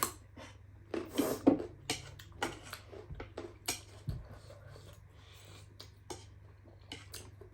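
Mukbang eating sounds: irregular chewing and slurping of spicy noodles, with small clicks of utensils against a dish, over a steady low hum.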